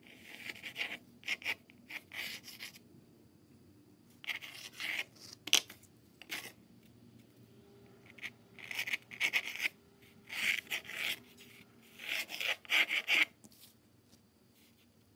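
Pencil scratching across paper in bursts of long sweeping strokes, drawing large curves, with short pauses between the strokes. There is one sharp tick about five and a half seconds in.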